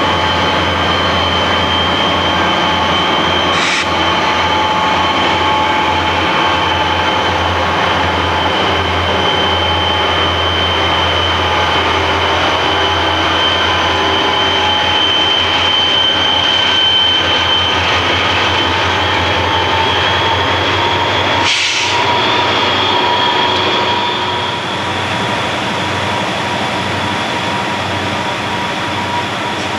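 Several Southern Pacific diesel locomotives and their freight train passing close by: engines running with a low steady rumble and wheels rolling on the rail, with a steady high whine over it. Two sharp clicks, one about four seconds in and one a little past twenty seconds; the sound eases slightly near the end as the locomotives move off.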